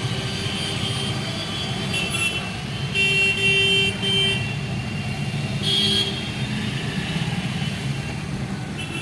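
Road traffic with a steady engine rumble, and a vehicle horn honking: three short toots in quick succession about three seconds in, then one more about three seconds later.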